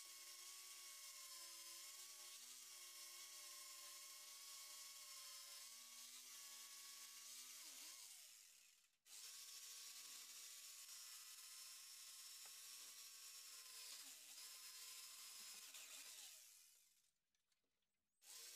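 Corded electric jigsaw cutting through wooden pallet deck boards, faint: a steady motor whine over the rasp of the blade. It winds down about eight seconds in, starts again almost at once, and winds down again near the end.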